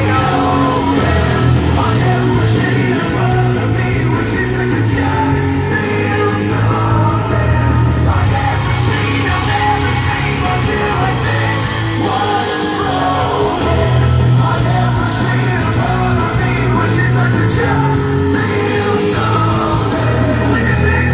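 A live hard rock band playing loud and steady, with a singer, heavy bass and drums with crashing cymbals, heard through the festival's concert PA.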